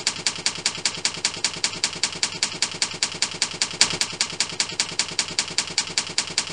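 Typewriter key-click sound effect: a rapid, even run of sharp clicks, about six a second, as text is typed out letter by letter.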